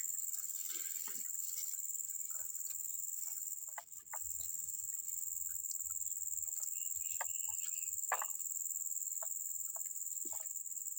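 Steady high-pitched insect drone, such as crickets in a rice paddy, with scattered small clicks and ticks; the drone dips briefly about four seconds in.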